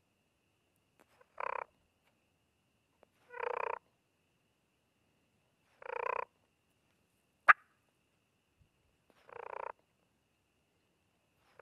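Wild turkey hen purrs made on a diaphragm mouth call: four short purrs a few seconds apart, with a fifth starting at the very end, as used to call in a close gobbler. A single short, sharp click falls between the third and fourth purr.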